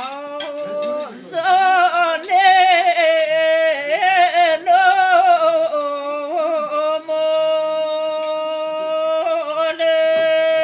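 An elderly woman singing solo and unaccompanied, an Albanian folk song. In the first half her voice moves through wavering, ornamented notes, and in the second half it settles into long held notes.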